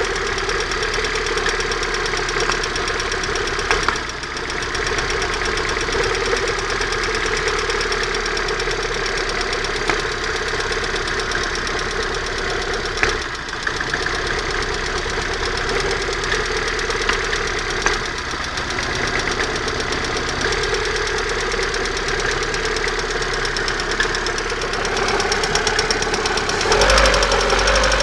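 Car engine running at a steady idle with a fast, even knocking or tapping, which the owner places near the exhaust manifold and cannot explain. A louder low rumble comes in about a second before the end.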